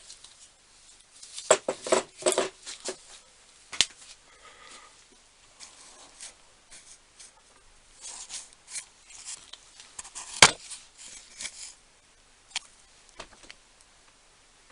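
Scattered clinks and knocks of metal parts and hand tools being handled during the dismantling of an old bench drill: a quick run of sharp clicks about one and a half to three seconds in, more light clicking later, and one louder knock about ten seconds in.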